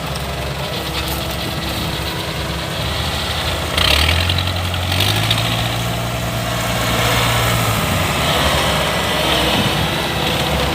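Kubota DC-105X combine harvester's diesel engine idling, its speed stepping up about four seconds in and dropping back a little before eight seconds.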